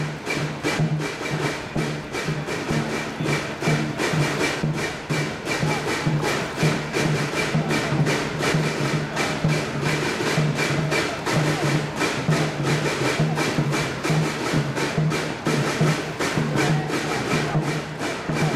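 Dragon boat drums beaten in a fast, steady rhythm, several strikes a second, keeping the paddling stroke for the racing crews.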